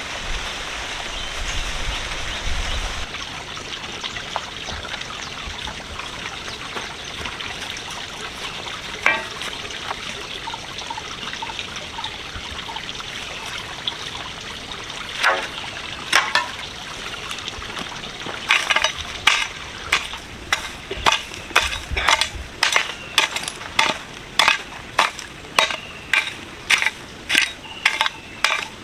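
Kitchen sounds: a steady sizzling hiss with a few scattered clinks, then, about two-thirds of the way in, a run of regular sharp knocks, roughly one and a half a second, from a utensil working in a pan or on a board.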